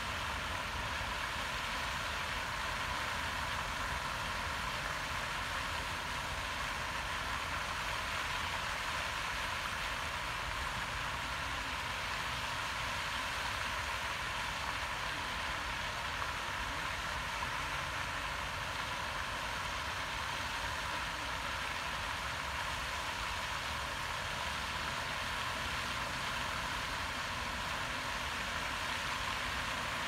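Steady, dense din of a huge murmurating starling flock, its massed chattering calls and wingbeats running together into one continuous rush, with a low rumble underneath.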